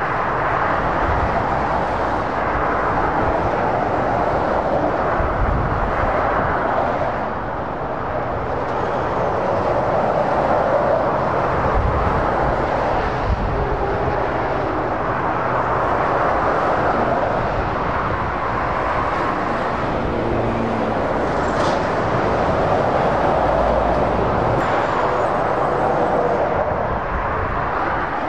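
Motorway traffic: articulated lorries and cars passing at speed, a steady wash of tyre noise and engine rumble that swells and fades as each vehicle goes by.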